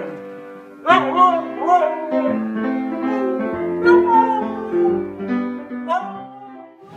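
A husky howling along to a piano being played, its howls rising and falling in pitch over the piano chords, with a long falling howl midway.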